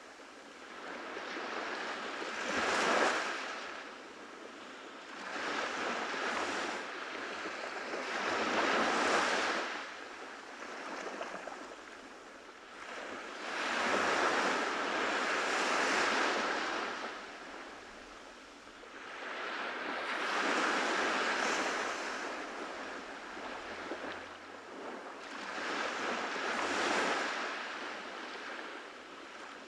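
Ocean waves breaking and washing up a beach, the surf swelling and falling back about every five to six seconds.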